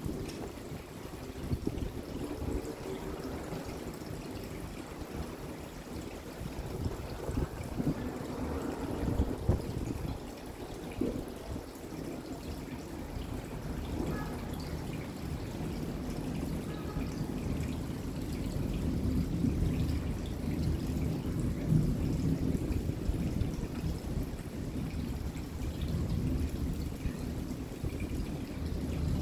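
Steady rain falling, with water trickling and pouring as it runs off, over a low rumble that grows a little louder in the second half.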